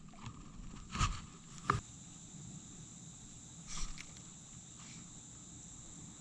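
Steady high-pitched insect buzzing, typical of crickets, with three short sharp noises: about a second in, just under two seconds in, and near four seconds in.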